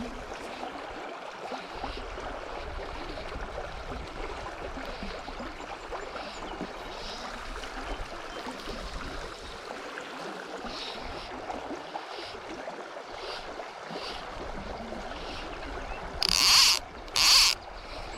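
Small creek running, a steady rushing of water, with wind rumbling on the microphone. Near the end come two short, loud rustling swishes.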